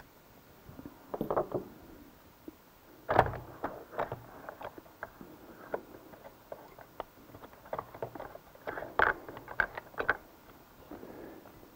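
Handling noise as the drive pulley unit and its belt are worked loose and lifted off a CVT transaxle: scattered clicks and knocks of metal pulleys against the plastic case. There is a louder knock about three seconds in and a cluster of knocks near the end.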